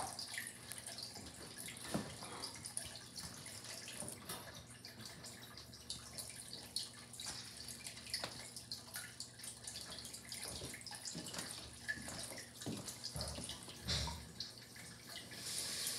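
Aquarium water trickling and splashing, with scattered small clicks and a few soft knocks, the loudest near the end.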